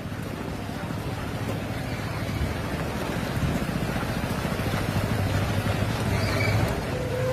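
Heavy rain falling steadily, an even hiss with a low rumble under it. Music comes in right at the end.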